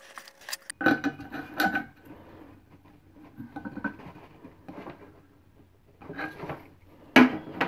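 Metal parts of a ceiling light fixture clinking and knocking as they are handled, with a screw and washer being fitted through the metal canopy and centre pipe. The knocks come irregularly, a few at a time, the loudest near the end.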